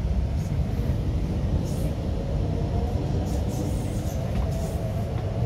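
MTR Q-Train electric metro train, a Hyundai Rotem build, running through the tunnel as heard inside the carriage: a steady low rumble of wheels on rail with a faint, even whine and a few light ticks.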